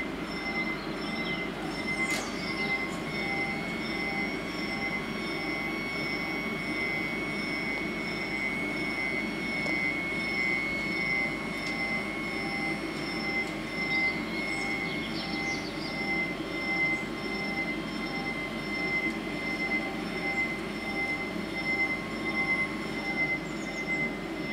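Warning bells of an Italian TM 2000 level crossing ringing steadily while the barriers come down, a constant high ringing over a busier lower clatter.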